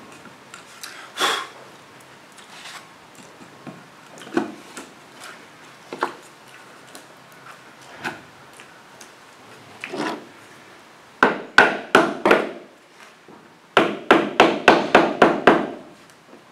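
Wooden plank being handled and fitted into place, with scattered light knocks of wood on wood, then a hammer tapping it home: a quick group of about five taps, a short pause, and a faster run of about nine taps near the end.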